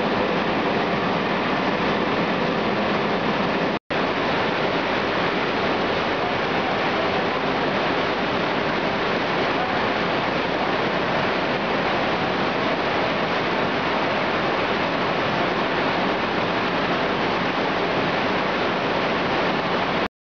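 Perfect Card-1000 high-production textile carding machine running, a steady, even mechanical noise. It drops out for a split second about four seconds in and cuts off at the very end.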